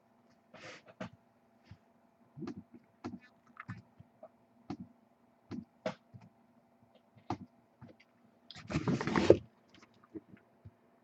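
Handling of a trading card box and its packs: scattered taps, clicks and knocks, with a louder rustling, scraping burst lasting about a second near nine seconds in. A faint steady hum runs underneath.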